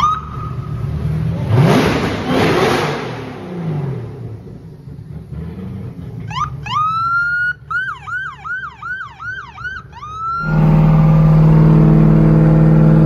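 A modified Ford Crown Victoria police car revs its engine hard about two seconds in while its siren holds a steady tone that fades. About six and a half seconds in the siren rises in a wail, then switches to a rapid yelp, about eight whoops in three seconds. Near the end, a steady, loud engine drone from inside a moving car.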